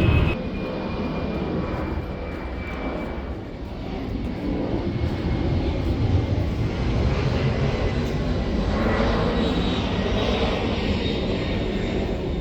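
Aircraft engine noise: a steady low rumble with a thin high whine that slowly falls in pitch, growing louder about four seconds in.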